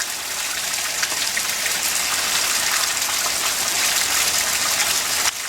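Heavy rain in a thunderstorm downpour, a steady hiss of rain falling and hitting the ground.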